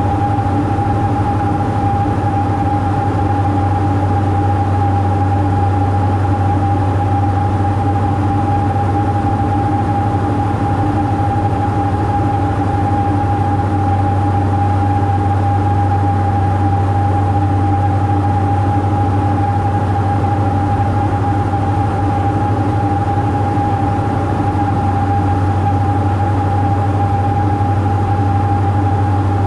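Steady drone of a Diamond DA42's twin engines and propellers heard inside the cockpit: a deep even hum with a steady higher tone over it, unchanging at a constant power setting.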